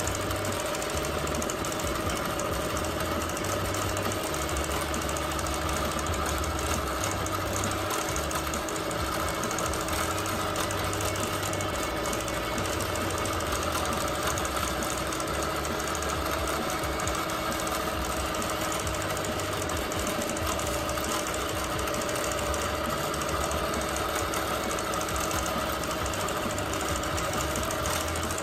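Bernina Q24 longarm quilting machine stitching continuously while free-motion quilting a feather fill: a fast, even needle chatter over a low motor hum that shifts up and down in pitch every second or so.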